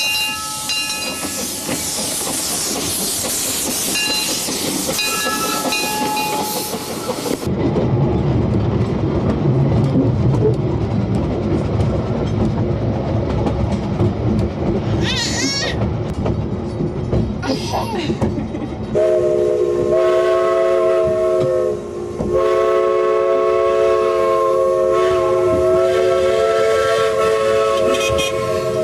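Steam locomotive hissing steam with a few squealing tones, then, after an abrupt change, the train running with a low rumble and wheel clatter. Near the end its chord whistle sounds, a short blast and then a long one.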